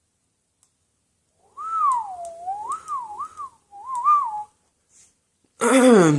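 A person whistling a short, wandering tune of a few notes that rise and fall, lasting about three seconds. Near the end comes a brief vocal sound that falls in pitch.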